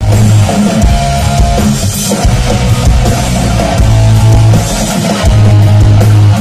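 Rock band playing loud, with drum kit, electric guitars and electric bass; it starts abruptly, and long low bass notes are held under the drums.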